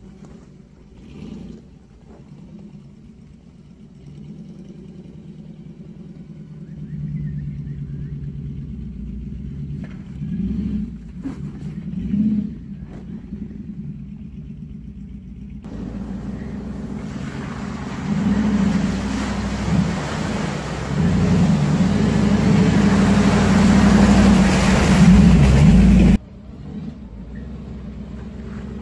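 A 4x4's engine running low and revving up and down as it crawls over a rocky track. From about halfway a loud rushing noise, likely wind on the microphone, drowns it out, then stops abruptly near the end.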